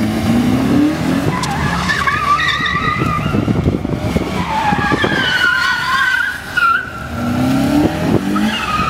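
Citroën Saxo VTS hatchback driven flat out through a cone slalom: the engine revs up and drops between gears, and the tyres squeal through the turns with a wavering high pitch. A short dip about six and a half seconds in comes as the car brakes for the next gate.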